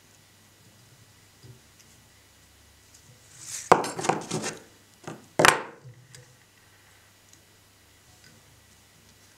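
A quick run of sharp, crisp snips and clicks a little over three seconds in, then one louder sharp click about two seconds later: small scissors cutting the tying thread off at the head of a finished fly in the vise.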